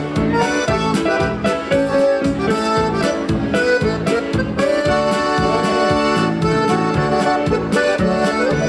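Live polka music: an accordion plays the melody over keyboard accompaniment with a steady, regular beat, with no singing.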